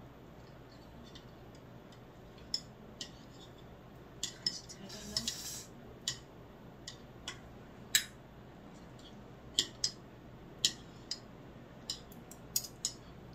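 Chopsticks clicking and tapping against dishes while picking up food: irregular sharp clicks, with a short scraping rustle about five seconds in.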